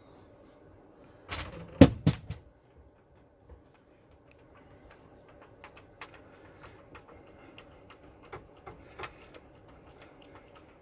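Metal clicks and clatter of a hand rivet nut gun and an M5 rivet nut being worked, with a sharp group of loud clacks about two seconds in, then scattered lighter ticks.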